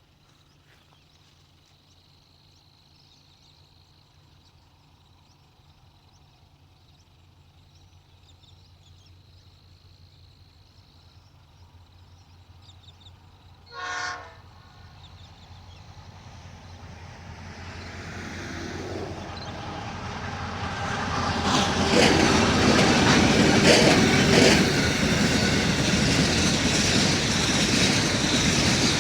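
An empty grain train hauled by diesel locomotives approaches, its engines growing steadily louder from faint to loud. About halfway through, the lead locomotive gives one short horn blast. Near the end, the engines and the clacking wagon wheels are loud as the train comes close.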